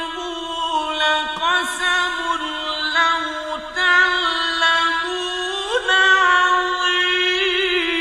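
A single reciter chanting Quran in the melodic tajweed style, holding long ornamented notes with a few slides in pitch and a rising glide near the end.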